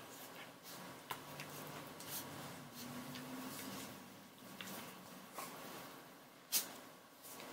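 Faint rustling and scattered soft clicks as puppies play-wrestle on a towel, with one sharper click about a second before the end.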